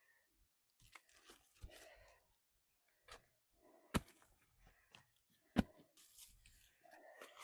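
Woody hedge stems and roots being broken and torn out by hand: scattered crunching and tearing, with two loud sharp snaps about a second and a half apart.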